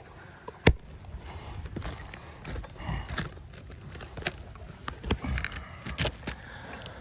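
Scattered clicks, scrapes and knocks over a low rumble, with one sharp click a little under a second in.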